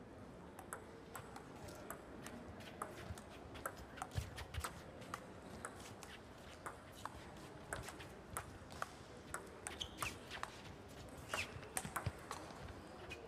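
Table tennis doubles rally: the ball clicking off the bats and the table in a long, even run of sharp ticks, about two to three a second.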